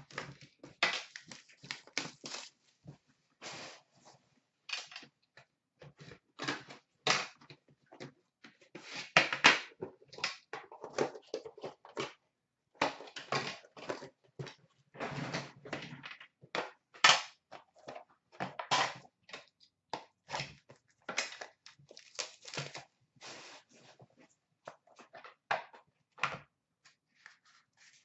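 Hands unwrapping and opening a sealed hockey card box: irregular crinkling, scraping and knocking as the wrapping comes off, the outer box is opened and the black metal tin inside is handled and its lid lifted.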